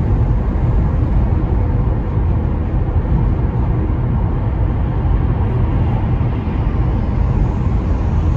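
Steady road and tyre noise heard inside a car's cabin while cruising along a highway, mostly a low rumble.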